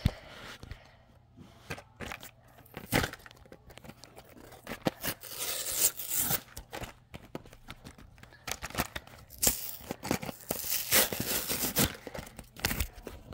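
Cardboard-and-plastic blister packaging of a toy train being torn open and crinkled, in irregular bursts of ripping and crackling, busiest about five to six seconds in and again from about nine to twelve seconds in.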